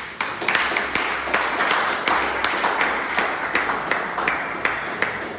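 Applause from a roomful of people, breaking out suddenly and easing slightly near the end.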